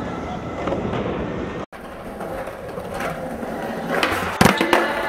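Crowd chatter in a large hall, then skateboard wheels rolling on concrete with a loud sharp clack of the board about four and a half seconds in.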